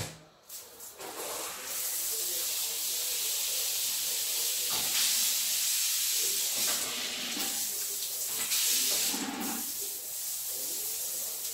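Water spraying from a newly fitted shower fed through a Jaquar two-inlet diverter. It is a steady hiss of running water that builds about a second in, with a couple of brief changes in its sound partway through.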